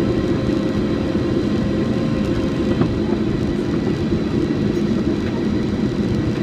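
Steady cabin noise inside a British Airways Boeing 777-200 descending on final approach: a low, even rush of jet engines and airflow, with a faint steady whine over it.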